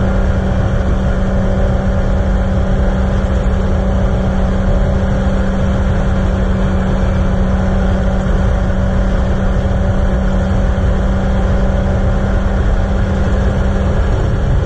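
Gyroplane in cruise flight: the engine and pusher propeller drone steadily at one even pitch, mixed with rushing wind noise.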